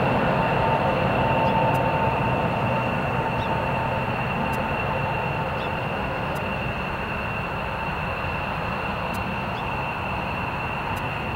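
Airbus A320 jet on landing approach passing just overhead and moving away: the rumble of its engines slowly dies down, and a whining engine tone fades out about five seconds in.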